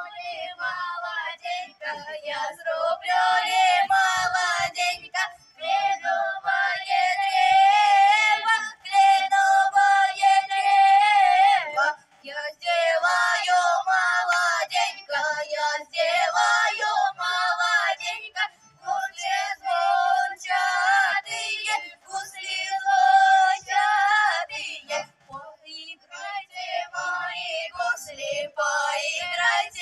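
Female voices, girls among them, singing a song together into microphones and amplified through stage speakers, with long held notes and short breaks between phrases.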